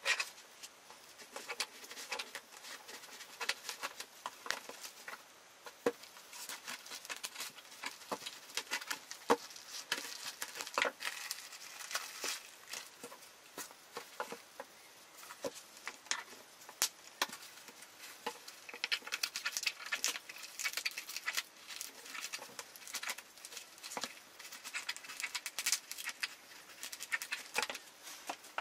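A parcel wrapped in plastic packing tape being handled and turned over on a paper-covered table: irregular crinkling and rustling, with many light taps and clicks.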